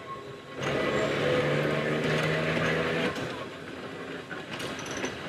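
Manx Electric Railway open crossbench tramcar passing close by: a steady electric hum over wheel-on-rail noise for about two and a half seconds. The hum stops suddenly about three seconds in, leaving quieter rolling and a few clicks as its open trailer goes by.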